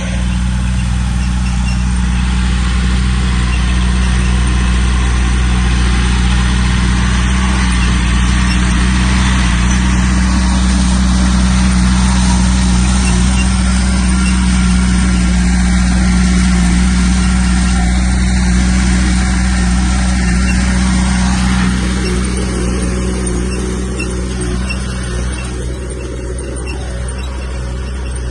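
Heavy diesel earthmoving equipment, a bulldozer or dump truck, running hard with a steady engine drone and a dense rushing, grinding noise over it. The noise eases off about three-quarters of the way through.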